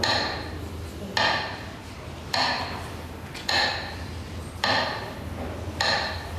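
A slow, even beat of sharp metallic strikes, one about every 1.15 seconds, each ringing briefly, over a faint low hum.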